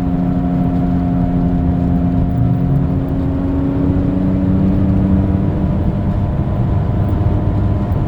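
Worn front left wheel bearing of a Ford Escape howling with a loud, steady hum heard inside the moving car, over road and drivetrain noise. The hum rises and falls in pitch with road speed and is the sign of a failing bearing.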